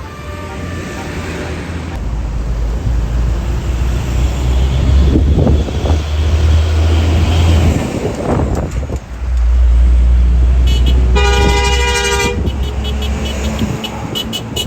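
A large bus passes close with a heavy engine rumble. About eleven seconds in, a telolet-style multi-tone horn sounds one steady chord for just over a second.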